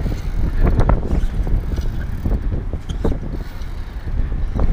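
Strong wind buffeting the microphone, a gusty low rumble, with a few brief knocks.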